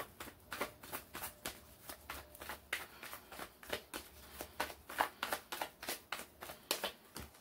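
A deck of tarot cards being shuffled by hand: a quick run of card flicks and slaps, several a second, stopping near the end.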